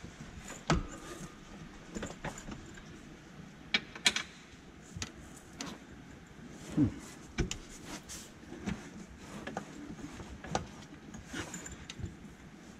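Irregular metallic clinks and knocks from hand work under a golf cart's rear suspension, tools and parts striking the steel frame and mounts as bolts are lined up. One knock about a second in rings briefly.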